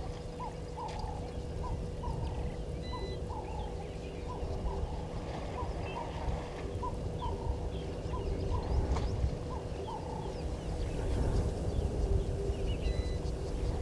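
A bird calling with a run of short notes, about two a second, over low rumbling noise that grows louder in the second half, with a faint steady hum underneath.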